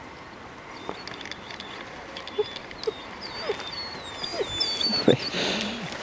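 Puppies whining and whimpering: a run of short, high squeaks that each fall in pitch, coming several in a row in the second half, with some lower whines and a rustle of dry grass near the end.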